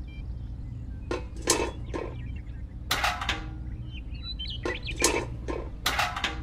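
Small metal toy buckets of beans clinking and knocking as they are set down on a wooden toy trailer bed: a series of light strikes, often in pairs, some with a short metallic ring. A steady low hum lies underneath.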